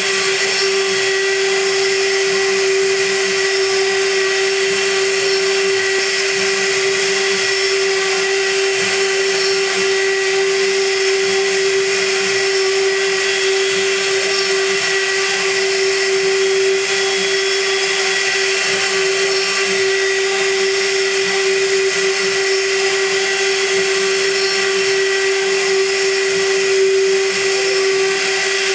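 CNC gantry milling machine's high-frequency spindle running with a steady whine while an end mill cuts aluminium, with a constant hiss of cutting noise over it.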